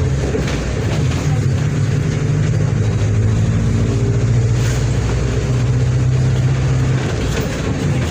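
Diesel engine of a Mercedes-Benz OF-1722M bus running under load. Its note shifts in pitch during the first few seconds, holds steady, then drops off about seven seconds in.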